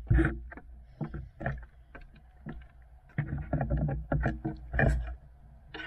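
Footsteps and knocks of someone hurrying up wooden deck stairs, with irregular thumps and rubbing from the carried gear against the microphone and some wind rumble. A cluster of heavier thuds comes past the middle.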